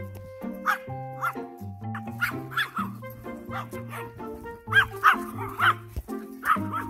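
Pomeranian barking in short repeated yaps, inviting the Border Collie to play, over background music.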